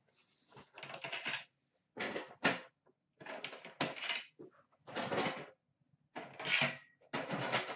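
Metal trading-card tins being stacked and put away by hand: a string of clattering knocks and scrapes, about one every second.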